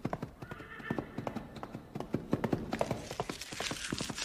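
Sound effects of horse hooves clopping in a steady rhythm with a horse's neigh early on, as from a film's soundtrack. About three seconds in, the loud crinkle of chocolate foil being torn open and unwrapped joins in.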